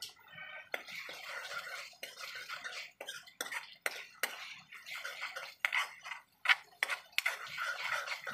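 Steel ladle stirring and scraping a wet onion-and-tomato sauce around a metal kadai, with irregular clinks of metal on metal.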